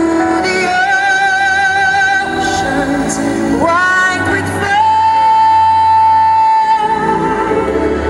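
Music with a singer holding long, wavering notes. About halfway through, the voice slides up into one long held note.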